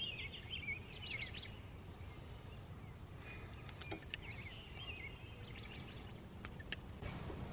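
Faint birdsong, short chirps and trills that come and go, over a low steady outdoor background noise, with a few light clicks of small hand tools.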